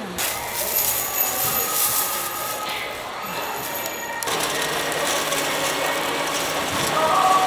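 Crinkling of a thin plastic bag and a plastic glove as a fried croquette toast is picked up and bagged, then, after a sudden change about four seconds in, the steady background noise of a busy covered market.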